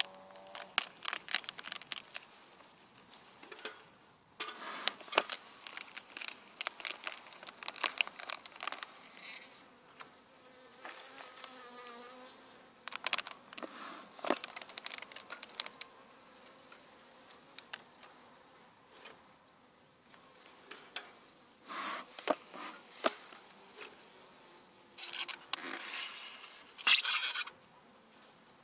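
Honeybees buzzing over an opened hive, mixed with bursts of plastic crinkling as an empty feed-patty wrapper is pulled off the top bars. The loudest crinkle comes near the end.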